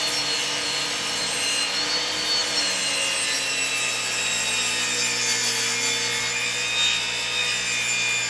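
Old Sears power saw running steadily while cutting through a wood block, with a faint whine that drifts slightly in pitch as the blade works through the wood.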